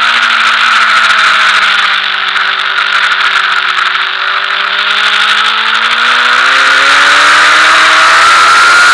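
Suzuki sportbike engine under load on a race track, holding steady revs through a corner with a slight drop, then accelerating with a rising pitch from about six seconds in. Heavy wind rush over the onboard camera.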